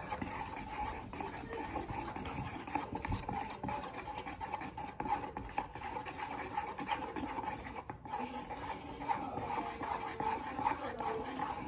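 Scratching and rubbing with small clicks from a slime mixture being stirred in a plastic bowl while a plastic bag of green ingredient is squeezed into it, over a steady faint hum.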